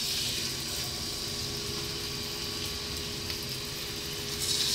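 Oiled, spiced salmon steaks sizzling in a frying pan over below-medium heat: a steady hiss that flares as the first steak goes in and again about four and a half seconds in as the second is laid down.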